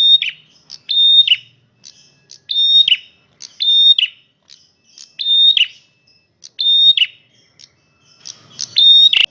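Male prenjak merah singing loudly in an even repeating series, about one call every second and a quarter, each a high held note that drops at the end. A sharp click near the end.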